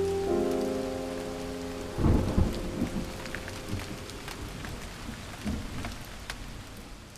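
A sustained chord of steady tones gives way about two seconds in to a sudden clap of thunder. Steady rain with scattered drips follows and slowly fades.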